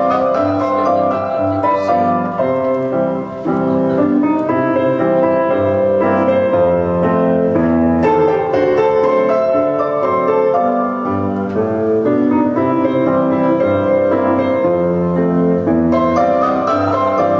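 Piano music: a melody played over chords.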